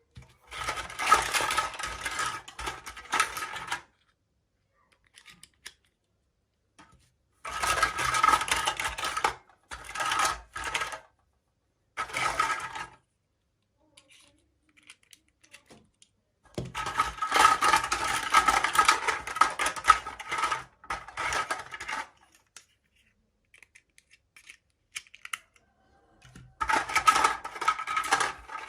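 Small packaging being handled and unwrapped in several separate bursts, each about one to five seconds long, with silence between. The rustling is mixed with light clicks and taps.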